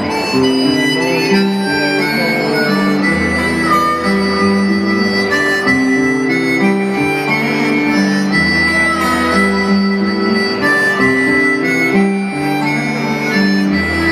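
Instrumental break of a song: a melody on a wind instrument is played in held notes over guitar and a bass line.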